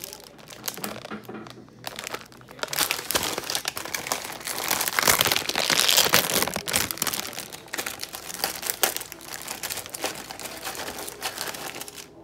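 Plastic packaging crinkling and rustling as it is handled, loudest about halfway through.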